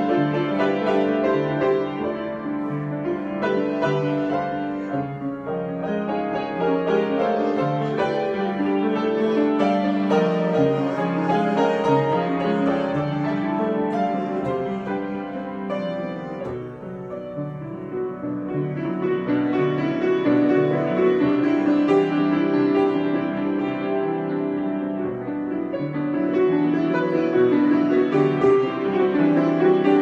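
Grand piano being played in a free improvisation: continuous chords and melody that ease to a softer passage a little past the middle, then build up louder again.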